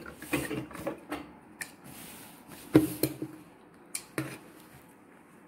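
Fabric rustling and a handful of sharp clicks and knocks, the loudest about three seconds in and two more a second later, as a white cotton garment is handled at a sewing machine that is not running.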